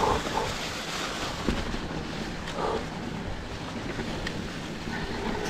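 Wind rushing over the camera microphone and tyres rolling over the trail as an electric mountain bike is ridden, with a few light knocks from the bike.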